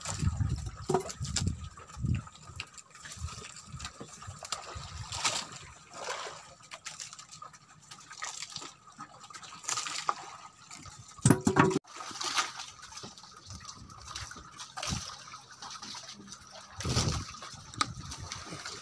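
Sea water sloshing and splashing against the hull of a small boat in irregular bursts.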